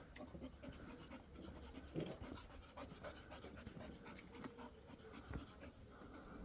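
A dog panting faintly, with soft scattered clicks.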